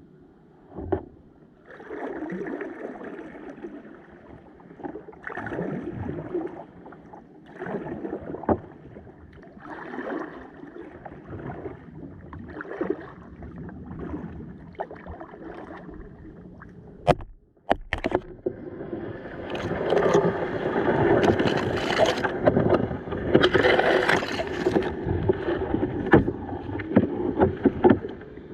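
Kayak paddle blades dipping and pulling through river water, a splashing swish about every two seconds. Two sharp knocks come partway through, then the water noise turns louder and more continuous.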